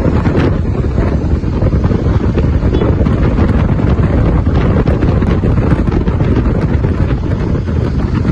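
Loud, steady wind rushing over the microphone of a camera riding on a moving motorcycle, with the motorcycle running and road noise beneath it.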